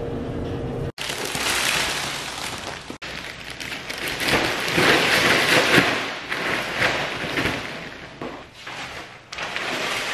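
Thin plastic shopping bag rustling and crinkling as it is handled and carried, loudest in the middle and fading near the end. It is preceded by a steady hum that cuts off abruptly about a second in.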